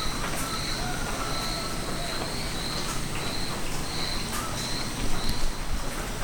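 A high chirp, typical of an insect such as a cricket, repeats steadily about twice a second over a low, steady rumble.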